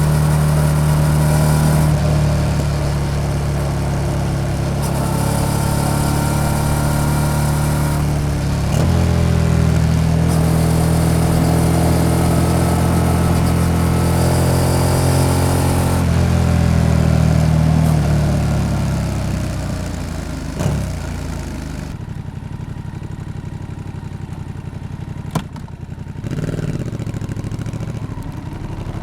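Yamaha XSR700's parallel-twin engine through an SC-Project exhaust, pulling through the gears: the note climbs and drops back at each shift. It then winds down to a quieter, steady low running. Near the end there is one sharp click and a short blip of the throttle.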